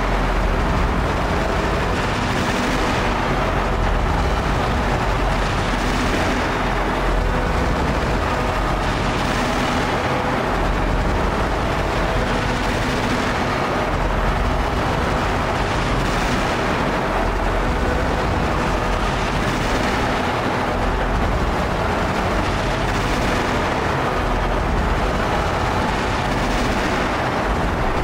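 Dense, distorted industrial noise drone from a Bastl MicroGranny sampler and Make Noise Strega played live through a Boomerang looper and effects pedals: a steady low rumble under a hissing swell that repeats about every three and a half seconds.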